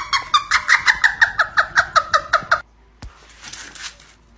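A woman's high-pitched cackling laughter, a rapid run of about six or seven short 'ha's a second. It cuts off suddenly about two and a half seconds in, leaving only faint noise.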